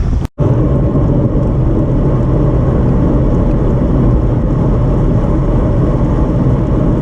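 Steady low rumble of wind buffeting the microphone while riding along a road, cut by a brief dropout a fraction of a second in.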